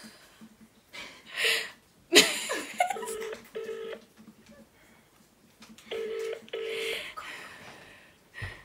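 Telephone ringback tone heard through the handset while the call is waiting to be answered: a double ring of two short steady tones, repeated about every three seconds, twice. Earlier there is a loud, short burst of noise close to the microphone.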